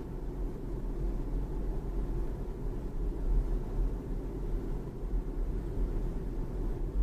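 Low, steady road and tyre rumble inside the cabin of a moving BMW 3 Series (G20), with small uneven swells in loudness.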